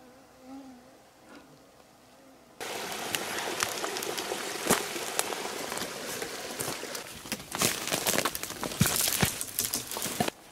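Footsteps pushing through brush and dead branches, with a dense crackle of rustling twigs, clothing and sharp snaps. It starts suddenly a few seconds in, after a faint, quiet start.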